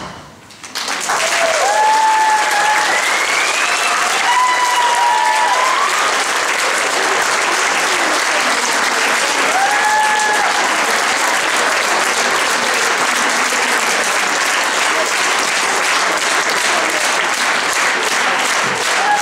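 A large audience of children and adults bursts into applause after a short hush under a second in, clapping steadily, with a few high cheering shouts rising above the clapping.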